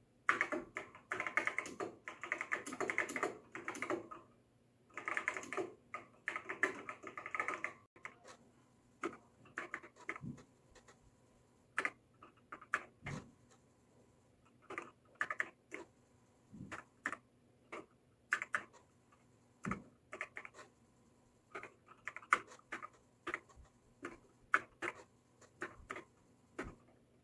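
Keys clacking on an Apple IIe keyboard: two runs of fast typing in the first eight seconds, then slower, scattered single keystrokes.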